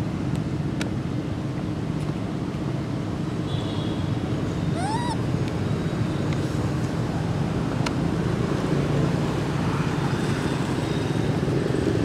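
Steady low background rumble, like traffic or a running engine, with one short call about five seconds in that rises in pitch and then drops, and a few faint clicks.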